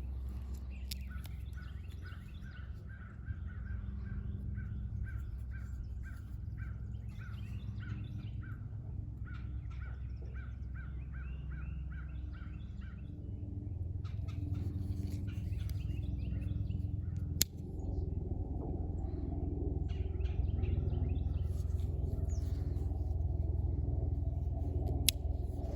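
A bird calling in long runs of short, evenly repeated notes, with other scattered chirps later, over a steady low rumble. A single sharp click sounds about two-thirds of the way through.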